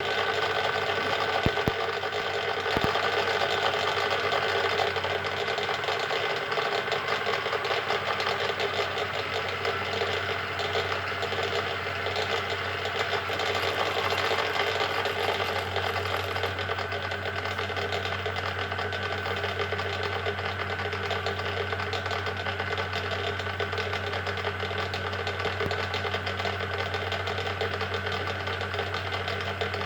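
Schaublin 13 lathe gearbox running with only one pair of gears meshing, no oil, giving a clear, steady rattling noise. The test isolates the rattle to these two gears. A few sharp clicks come in the first three seconds.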